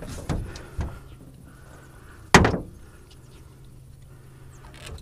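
Thuds and knocks on the deck of a metal jon boat while a landed redfish is handled on it: two light thuds in the first second and one sharp, loud knock about two and a half seconds in.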